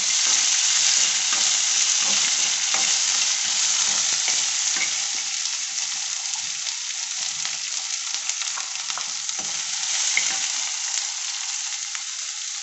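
Sliced onions sizzling in hot oil with the tempering of mustard seeds, green chillies and curry leaves in a kadai, stirred with a steel spoon that scrapes and clicks against the pan. The sizzle slowly grows softer.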